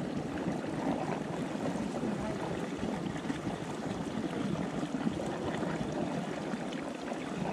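Steady running water, an even rush with no distinct splashes or knocks.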